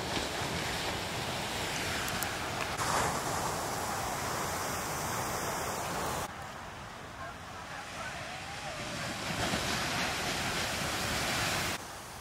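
Heavy ocean surf: large waves breaking and whitewater rushing as a steady, loud rush of noise. It drops off suddenly about six seconds in, swells again, and drops once more near the end.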